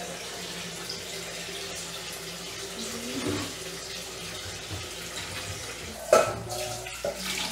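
Kitchen faucet running steadily into a stainless steel sink, an even hiss of falling water. A brief louder sound comes about six seconds in.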